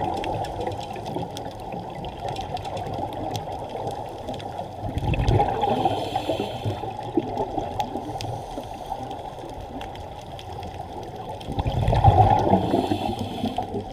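Seawater washing in a continuous wash, surging louder twice, about five and twelve seconds in, as waves come in.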